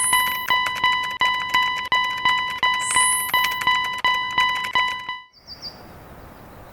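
Japanese railroad crossing (fumikiri) alarm bell ringing in a fast steady clang, about three strikes a second, with a high rising whoosh laid over it twice. It cuts off suddenly about five seconds in, leaving a faint hiss and one short chirp.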